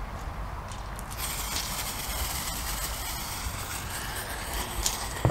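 Lit fuse of a firework mortar hissing steadily as it burns and sprays sparks, the hiss growing about a second in, with a couple of small crackles near the end.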